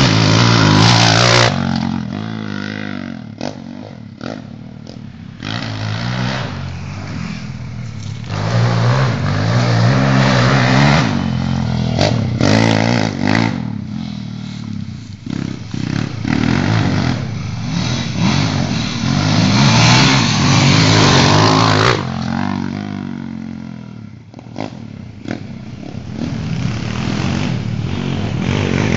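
Single-cylinder four-stroke dirt bike engines, a worked 140cc minibike and a Yamaha WR250, revving hard and backing off as they ride the trail, the revs rising and falling through the gears. The engine is loudest at the very start, again around ten seconds in and around twenty seconds in, and fades between passes.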